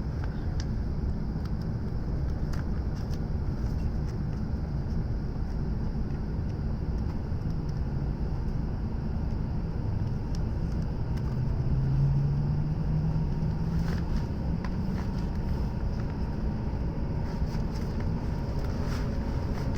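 Cabin noise inside a passenger car of an E7-series Shinkansen running: a steady low rumble with a low hum that rises slowly in pitch about halfway through, and a few faint clicks.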